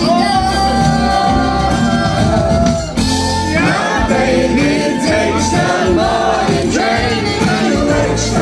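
A woman singing a pop song live with guitar accompaniment. She holds one long note, breaks off briefly about three seconds in, then carries on with shorter sung phrases.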